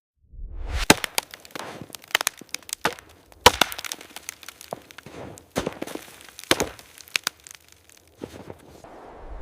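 Large tree cracking and splitting as it comes down: a low rumble at the start, then a run of sharp, loud wood cracks and snaps over several seconds that stop suddenly near the end.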